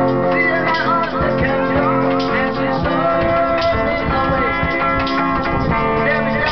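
Men singing a song to a guitar, the guitar plucked and strummed under a wavering lead voice.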